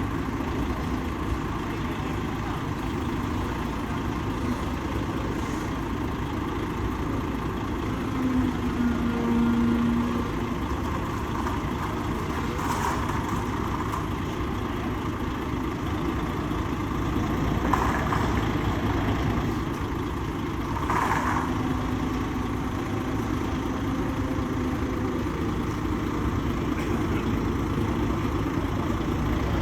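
Steady rumble of engines and traffic with city background noise. A short low hum comes in about a third of the way through, and a few brief sharper noises stand out later.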